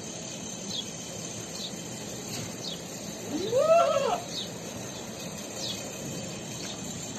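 Hejazi goat bleating once, a single call about a second long that rises and falls in pitch, with small birds chirping faintly and repeatedly in the background.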